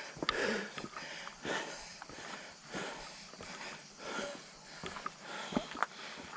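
A person breathing hard from climbing a steep trail, a loud breath roughly every second and a quarter, with a few sharp knocks like footsteps near the end.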